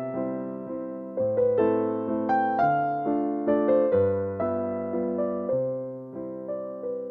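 Background music on a keyboard: a melody of struck notes over low chords, each note fading after it is struck.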